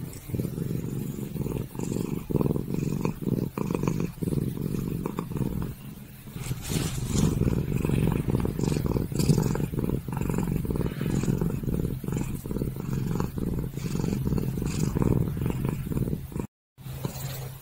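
A Dragon Li (lihua) kitten purring loudly and steadily while being stroked against the grain of its fur. The purr has a brief gap near the end.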